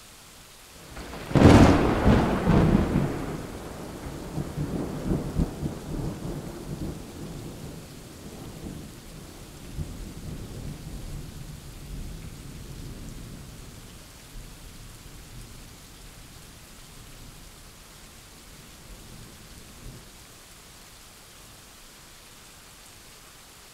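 Thunderclap in a rainstorm: a sudden sharp crack about a second in, the loudest sound, then a long rolling rumble that slowly fades, over a steady hiss of rain.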